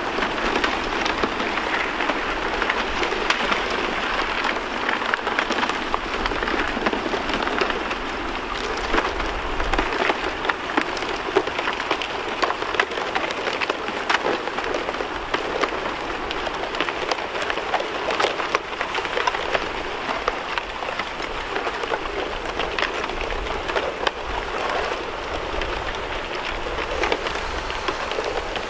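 Thin plates of fresh lake ice breaking and stacking against the shore as the floe is pushed in: a steady, dense crackle of countless small clicks and clinks.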